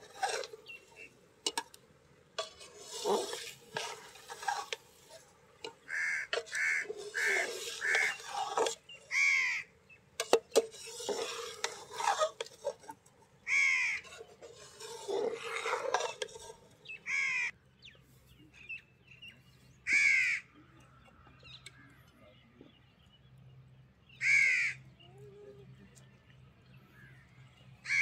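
Metal ladle stirring and scraping through cooked rice in an aluminium pot, with knocks against the rim, as jaggery is mixed into the rice; the stirring stops after about two-thirds of the way through. A bird calls repeatedly, single calls every few seconds, with a quicker run of four calls early on.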